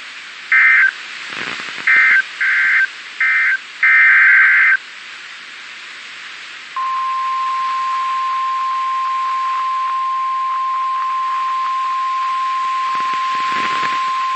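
Emergency Alert System header for a weather warning: five short bursts of warbling two-tone digital data (the SAME header) in the first five seconds. About seven seconds in, the steady single-pitch 1050 Hz attention tone begins and holds.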